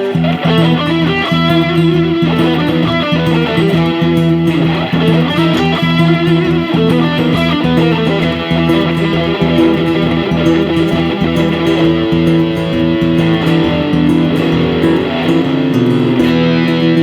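Instrumental guitar break between verses of a song: a guitar plays a melody over held bass notes and a steady beat.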